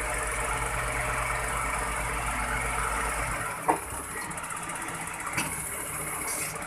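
Hooklift truck's diesel engine and hydraulics running under load as the hook arm lowers a steel roll-off container onto the bed. The steady low hum drops away about three and a half seconds in, and the container comes down with a metal clank, followed by a lighter knock near the end.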